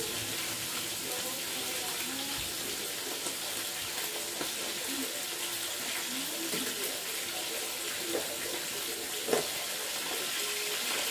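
Water running steadily from a kitchen tap into a sink, with two light knocks late on.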